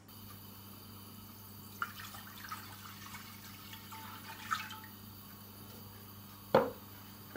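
Water poured from a plastic jug into an enamelled cast-iron pot, splashing faintly, with one sharp knock near the end.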